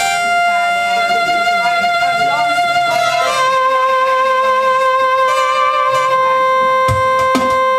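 A live band starting a song. A single long held instrument note, steady in pitch, steps down to a lower held note about three seconds in. Low drum thumps come in near the end.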